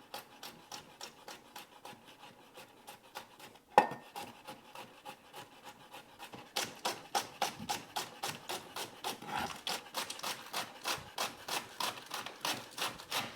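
A kitchen knife rapidly chopping garlic very finely on a cutting board: an even run of light knocks, about five a second, getting louder about halfway through, with one sharper knock about four seconds in.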